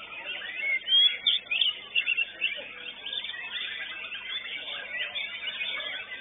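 Several white-rumped shamas (murai batu) singing at once, a dense mix of overlapping whistles, chirps and rapid trills, with the loudest sharp notes about a second in.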